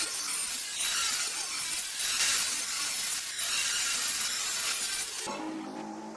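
Wood being worked by hand in long rasping strokes, about one a second, like sanding or sawing. Near the end the strokes stop and a quieter steady hum takes over.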